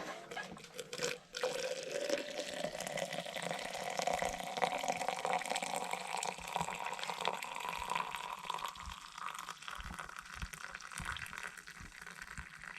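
Liquid being poured steadily into a container. The pitch slowly rises as the container fills, and the pour stops abruptly near the end.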